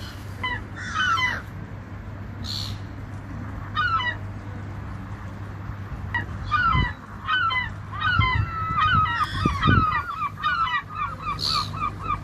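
Gulls calling, many short overlapping cries, thickening from about eight seconds in into a fast, even run of short repeated notes. A steady low hum lies underneath, with a couple of low thumps.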